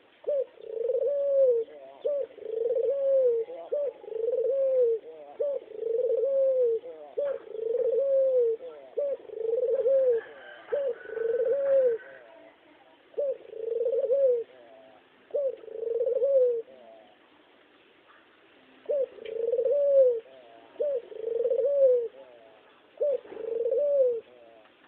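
A dove, the white bird known locally as kugeru, cooing over and over: arched coos about one a second, with a short pause after the middle.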